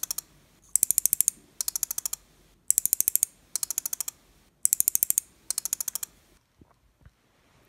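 Songle SRD-05VDC-SL-C relays on an 8-channel relay module clicking in rapid runs, about ten clicks a run and roughly one run a second, as the Arduino Nano steps them on and off in a chase sequence. The clicking stops about six seconds in.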